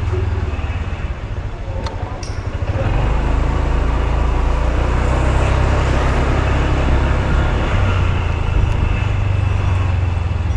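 Road traffic noise with a steady low rumble of vehicles moving, growing louder about three seconds in.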